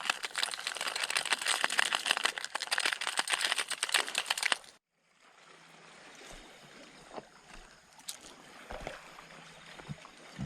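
Water splashing and churning close to the microphone, a loud crackling rush. It cuts off suddenly about five seconds in, giving way to a quieter steady water hiss with a few small knocks.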